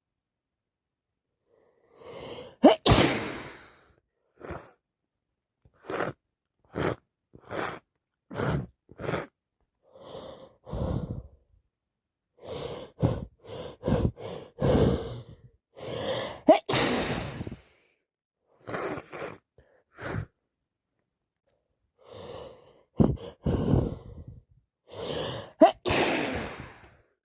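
A person with a heavy cold sneezing several times: a strong sneeze about three seconds in, another in the middle and a loud one near the end. Between them come short, sharp catches of breath.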